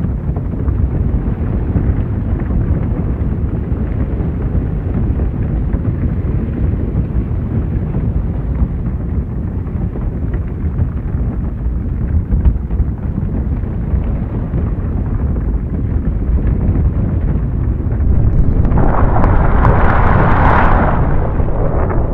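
Loud, continuous deep rumbling noise. Near the end, a brighter, hissing surge swells for about two seconds.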